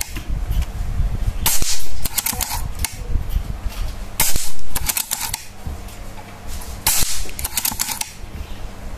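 Silenced Predator Immortal PCP air rifle firing three shots, roughly two and a half seconds apart, with lighter clicks between the shots.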